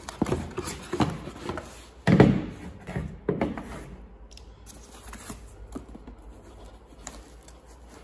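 Handling noise from unpacking a battery charger: a cardboard box and foam packing being rummaged, and the charger and its cables set down on a cloth-covered table. The loudest sound is a thump about two seconds in, followed by quieter light clicks and rustles.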